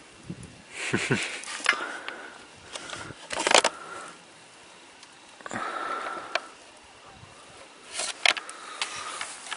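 Paper shooting target crinkling and rustling as it is handled, in a few short bursts with sharp crackles between quiet stretches.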